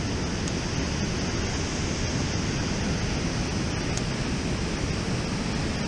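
Steady rush of water spilling over a low concrete dam and churning the river below, with a low wind rumble on the microphone.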